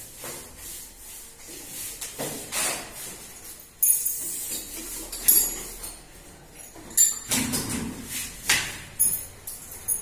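Metal tools and small lock parts clinking and rattling as they are picked up, sorted and set down, with several sharp metallic clinks in the second half.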